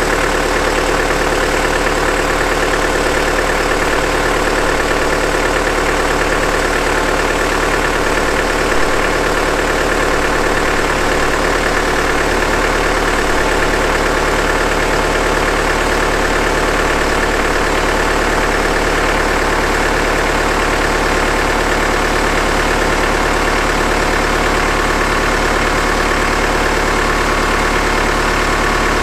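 Chevrolet Colorado ZR2's 2.8-litre Duramax four-cylinder turbodiesel idling steadily shortly after a cold start at about −3 °F, with no block heater and only the glow plugs used.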